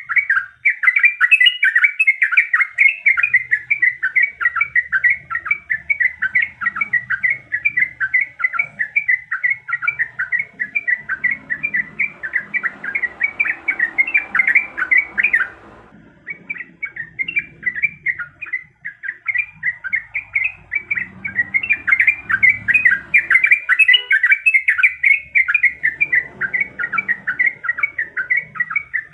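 Yellow-vented bulbul (trucukan) singing in long rapid rolls of short chattering notes, almost without a break, pausing briefly about halfway through.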